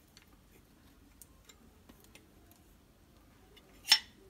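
Faint light ticks of a steel spoon scraping tomato chutney paste out of a steel mixer jar into a steel bowl, with one sharp click near the end.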